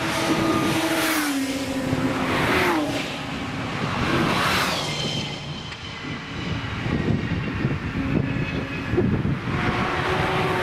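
High-speed vehicles passing a race-track corner. A motorcycle engine rushes past in the first few seconds, its pitch dropping and rising as it goes by. A car's engine closes in with a rising sound near the end.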